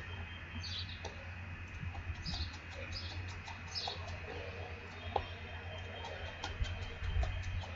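Small birds chirping repeatedly, short calls about once a second, over a steady low rumble. Light taps of sneakers landing on a concrete walk come in between, from jump lunges.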